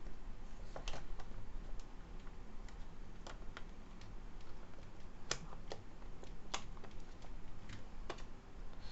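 Irregular light clicks and taps from a Raspberry Pi 4 case and its fan being handled and fitted together, with a few sharper clicks past the middle.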